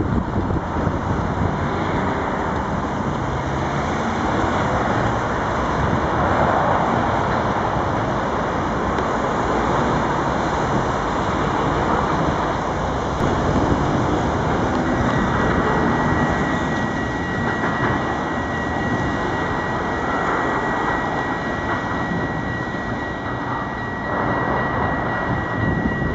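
Street traffic noise with trams running along the road; about halfway through a steady high-pitched whine sets in and holds for about ten seconds.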